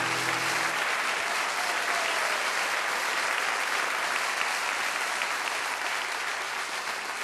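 Audience applauding at the end of a song, as its final held note cuts off just under a second in; the applause slowly fades.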